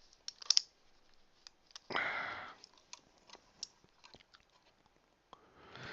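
Faint small clicks and scrapes of a screwdriver working tiny screws into a laptop SSD caddy, with a brief rush of noise about two seconds in.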